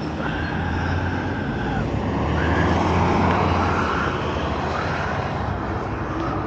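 Wind rushing over the microphone of a moving e-bike, with a strong low rumble that swells around two to three seconds in. A thin steady whine sounds for about a second and a half near the start.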